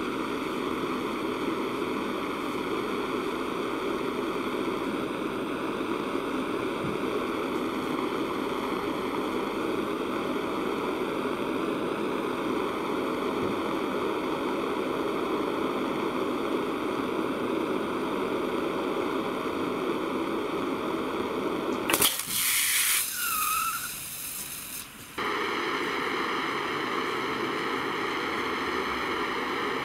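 Gas blowtorch flame hissing steadily as it heats an AA battery. About three-quarters of the way in, the steady hiss gives way for about three seconds to a louder, different rush of noise with brief whistling tones, then the torch hiss resumes.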